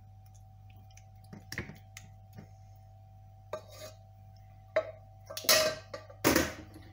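Wooden spoon tapping and scraping in a ceramic baking dish of macaroni and cheese, a few light clicks, then two louder clatters of a cooking pot near the end. A steady low hum runs underneath.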